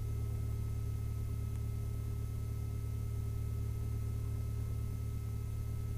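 The Lycoming IO-360-A1A four-cylinder fuel-injected engine of a 1967 Mooney M-20F running steadily at low power while its oil warms up: an even, low drone with faint steady tones above it.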